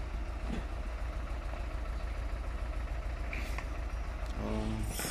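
An engine idling, with a steady, even low pulsing.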